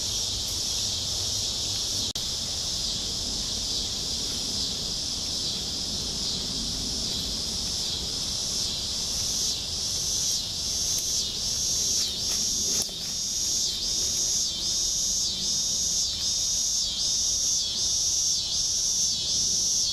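Chorus of night insects: a steady high-pitched trill, joined about halfway by an evenly pulsing call of about one and a half beats a second.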